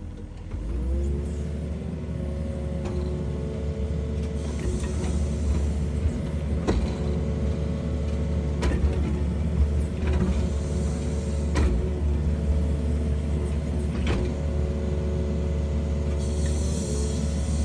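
Excavator's diesel engine rising in revs about a second in, then running steadily at working revs, with several sharp knocks and a few short spells of hiss along the way.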